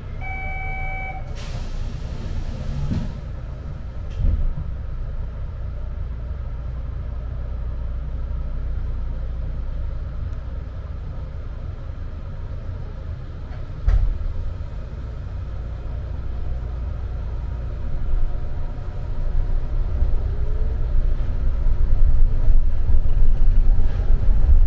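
Interior running sound of the Rokko Liner, a rubber-tyred automated guideway train. A short electronic beep, then a hiss of air for about a second and a half, then a steady low rumble with two thumps, about 4 and 14 seconds in, growing louder near the end.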